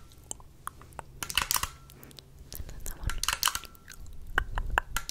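Crisp clicking sounds made close to a microphone for ASMR, in about four short clusters separated by quieter gaps.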